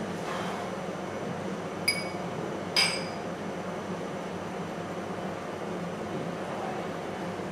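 Glass tumblers clinking twice, about a second apart, each with a short bright ring, the second louder, over a steady low background hum.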